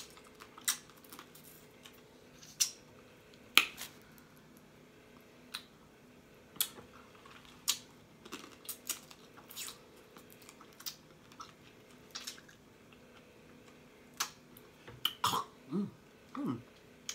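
Eating blue crab up close: irregular sharp cracks, clicks and mouth smacks of crab shell being broken and chewed, the loudest a few seconds in. A short low hum near the end.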